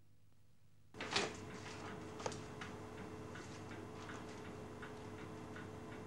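Near silence, then, about a second in, a quiet room sound starts: a clock ticking over a low steady hum.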